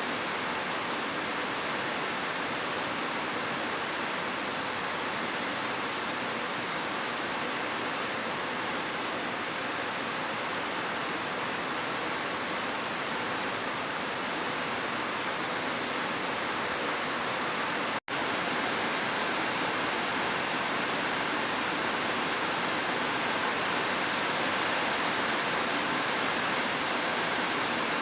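Heavy rain falling as a steady, even hiss. The sound cuts out for an instant about two-thirds of the way through.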